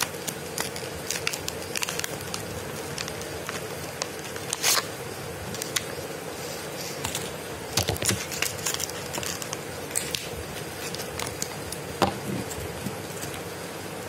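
Small clicks, taps and scrapes from a fidget spinner and its box being handled on a wooden table, the loudest knock about five seconds in. A faint steady hum runs underneath.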